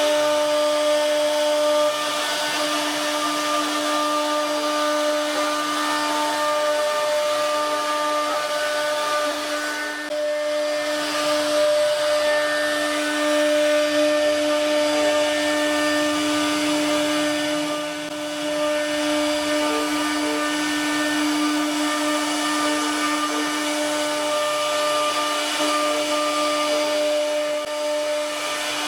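CNC router spindle running with a steady high whine while the bit cuts wood, with a rough hiss of cutting over it and small shifts in pitch as the load changes.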